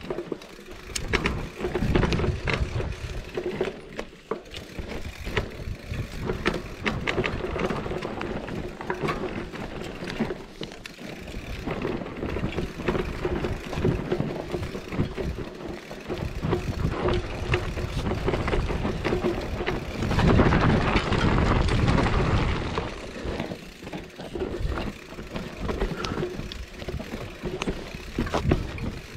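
Mountain bike descending a dirt singletrack: tyres rolling over dirt and roots, with many knocks and rattles from the bike over the bumps. A louder low rumble comes about two-thirds of the way through.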